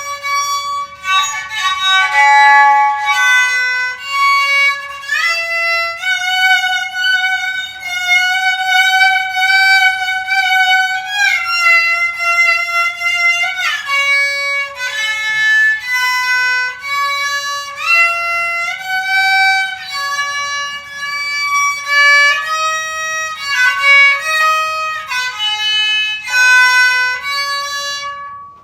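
Kokyu, a Japanese bowed fiddle, playing a solo melody of held notes joined by sliding changes of pitch. It stops suddenly near the end.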